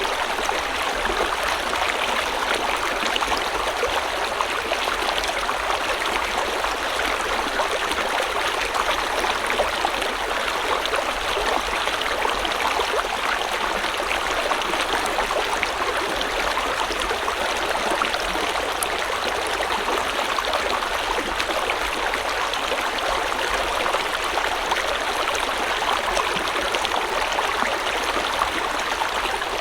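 River water flowing steadily over rocks, a continuous rushing with fine gurgling and splashing detail.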